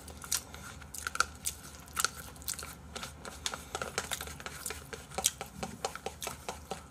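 Close-miked eating sounds: chewing, lip smacks and small clicks of chopsticks against a bowl, coming irregularly several times a second.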